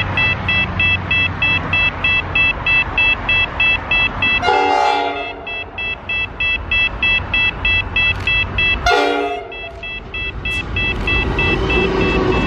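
Diesel freight locomotive sounding two short horn blasts about four seconds apart as it approaches, then the rumble of its engines building as it draws level near the end. A high electronic beeping repeats about three times a second throughout.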